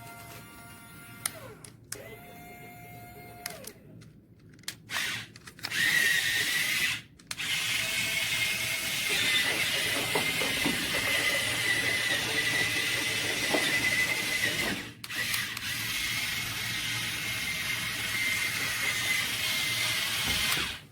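Small electric motors and plastic gearboxes of a DOUBLE E remote-control toy excavator whirring with a steady high whine. They start about six seconds in and pause briefly twice. The first seconds hold only faint steady tones.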